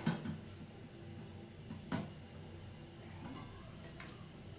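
Popcorn kernels starting to pop inside a covered pot over a gas flame: a few separate sharp pops, three in all, near the start, around the middle and faintly near the end.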